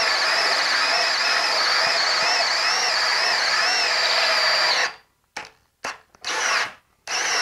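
Ryobi HP cordless hammer drill in drill mode running steadily under load as a 2½-inch bimetal hole saw cuts into a wooden board, its motor whine wavering in pitch. About five seconds in, the drill stops, then runs again in several short bursts.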